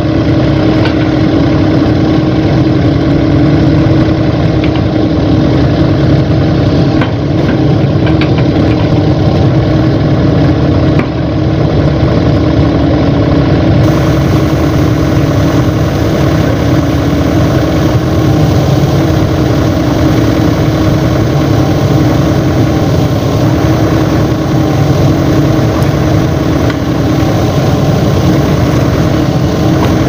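Crawler excavator's diesel engine running steadily, a constant drone with a strong steady hum.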